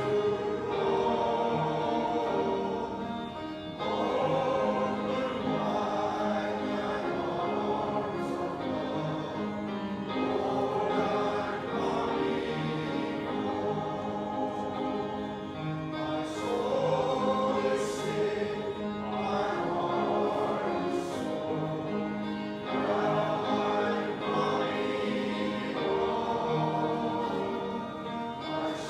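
Congregation singing a hymn together, accompanied by piano, in slow sustained chords.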